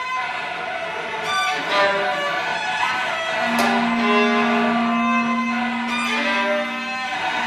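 Contemporary chamber music for flute, clarinet, violin, cello and piano, played live: sparse sustained notes with bowed strings to the fore and a few sharp attacks. A low note is held steady from about halfway.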